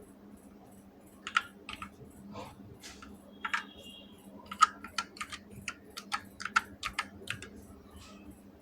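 Keys being pressed on an Evofox Katana S Mini mechanical keyboard with red switches: irregular clacks, some in quick runs. A brief faint high tone sounds about three and a half seconds in.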